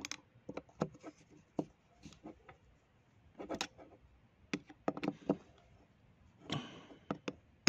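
A screwdriver driving small screws into the aluminium body of a GM12F carburettor: scattered light metal clicks and scrapes of the blade in the screw heads, with a denser cluster a little after three seconds and again near the end.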